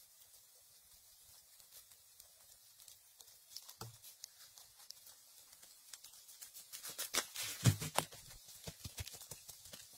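Moss being pulled up by hand and dry fallen leaves rustling and crunching, in scattered crackles with a soft thud about four seconds in and a burst of louder crackles around seven to eight seconds in.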